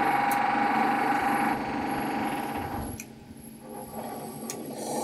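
Power tool running steadily with a buzzing tone, from renovation work on the house next door; it stops about three seconds in.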